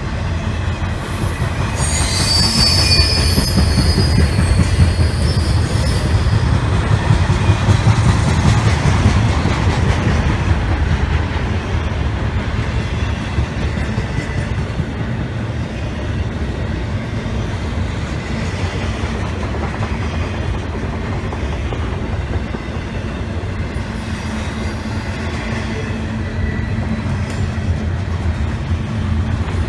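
Freight train rolling past with a steady low rumble of cars on the rails; wheel flanges squeal high-pitched for the first few seconds.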